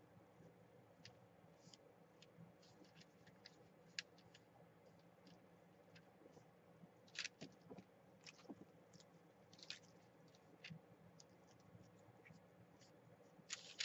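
Near silence with scattered faint clicks and soft rustles of hands touching and pressing down paper, a few slightly louder taps about 4, 7 and 10 seconds in and near the end.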